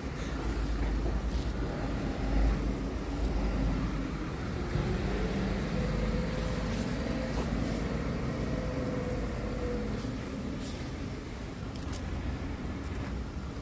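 Diesel engine of a Scania P tipper truck idling steadily, a continuous low rumble.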